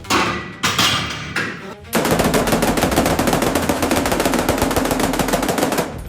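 Rapid automatic gunfire: a few separate shots in the first two seconds, then a continuous fast burst of fire lasting about four seconds.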